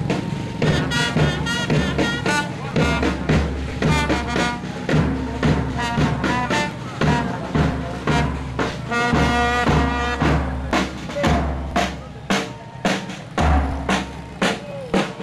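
Music with a steady drum beat and a melody on top.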